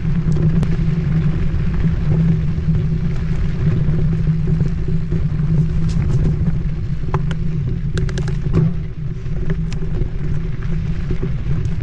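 Steady low rumble of wind buffeting the camera microphone as a Marin Mount Vision 8 mountain bike rolls along a dirt singletrack. There are scattered sharp clicks and rattles from the bike over rough ground around the middle.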